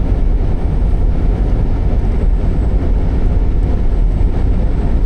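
Semi truck driving, heard from inside the cab: a steady, loud low rumble of engine and road noise.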